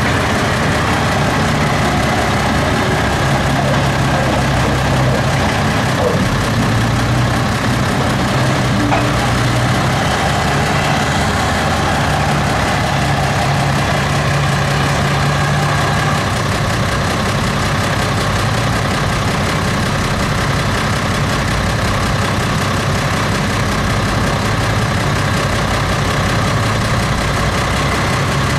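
Manitou telehandler's diesel engine working under load as it drives up a silage clamp pushing and lifting grass, its engine note rising and falling.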